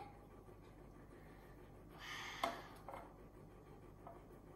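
Near silence in a small room, broken about two seconds in by a short breathy rush that ends in a click, then a few faint clicks.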